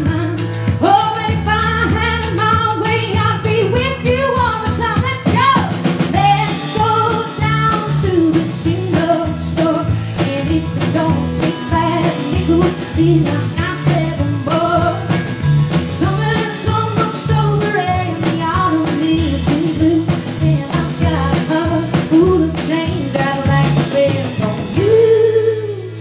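Live band playing a song: a woman sings lead over acoustic guitar, electric bass and drums, with a long held sung note near the end.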